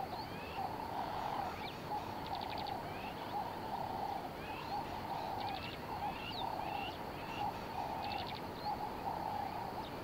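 Wild birds calling: short rising chirps repeated every second or so, with a few rapid clicking trills, over a steady pulsing lower chorus.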